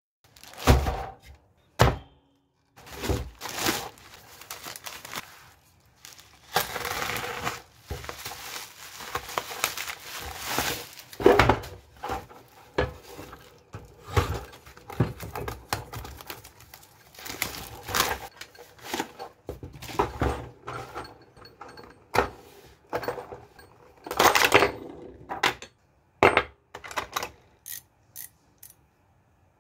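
Plastic mailer and wrapping being torn and crinkled while unpacking a Stanley socket set, with knocks from handling its metal case. Near the end, a series of light clicks from the socket ratchet being turned by hand.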